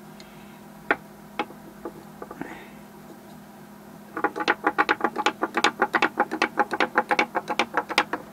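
Wooden hopping kangaroo toy on a sloped plywood board: a few single taps as it is set down, then from about four seconds in a quick, even run of wooden clicks, about six a second, as its pivoting legs knock on the board while it hops down the slope.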